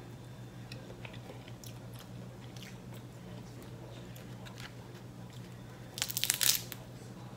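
Soft chewing with small scattered mouth clicks, then about six seconds in a short burst of crackling as a cooked crab leg's shell is cracked and pulled apart.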